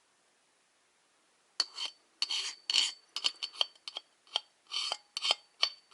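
A metal screwdriver scraping and clinking against the metal inside of a disassembled viscous fan clutch, working its thick fluid. After a quiet start, a quick, uneven run of about a dozen short scrapes and ringing clinks begins about a second and a half in.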